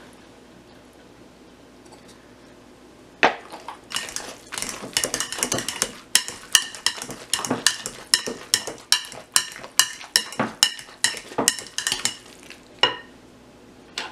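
Wire potato masher mashing avocado with lime juice in a glass bowl, knocking and clinking against the glass about twice a second. The mashing starts about three seconds in and stops shortly before the end.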